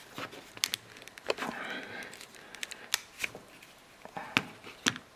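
Scattered sharp clicks and light rustling handling noises, irregular, with the loudest click about four and a half seconds in.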